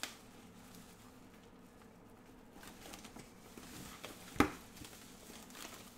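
Faint rustling and crinkling of a plastic-and-foam wrapping bag being handled while its tape is picked at, with one sharp knock about four and a half seconds in.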